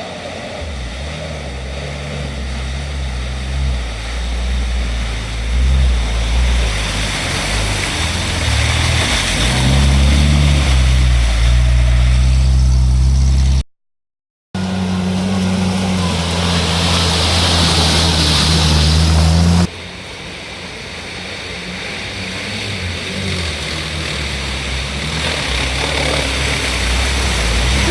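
Off-road 4x4 engine running under load, its note rising and falling as it is revved, in several edited segments. The sound drops out completely for a moment about halfway through, and a few seconds later it jumps to a quieter engine sound that gradually builds again.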